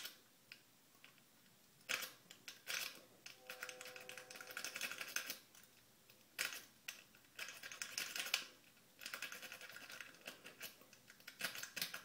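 Half-diamond lock pick raking the pins of an American padlock with three spool pins, held under a tension wrench. It gives several short bursts of quick metallic clicking and scraping, and the lock opens near the end.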